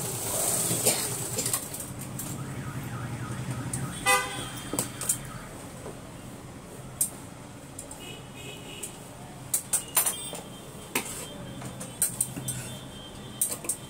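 A steady low hum with a vehicle horn tooting in short pulses about four seconds in and a fainter tone around eight seconds. Scattered light clicks and a scrape come from tailor's chalk and a plastic scale worked on cloth.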